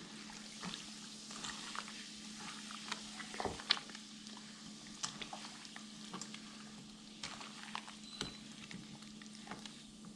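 Faint wet liquid sounds with many small scattered clicks as chicken leg quarters are mixed in a marinade with Sprite, over a faint steady hum.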